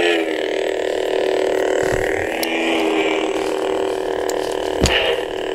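Dubbed-in lightsaber sound effect: a steady electric buzzing hum whose pitch wavers as the blade is swung, with a sharp hit near the end.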